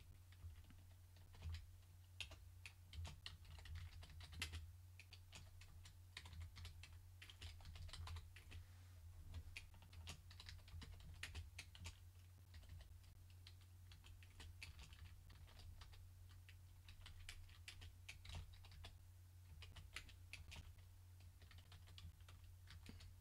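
Computer keyboard typing: faint, irregular keystrokes in a steady stream as text is keyed into a form, over a steady low hum.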